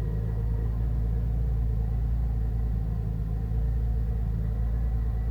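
Holden Commodore SV6's 3.6-litre LFX V6 idling steadily on fresh oil, moments after being started.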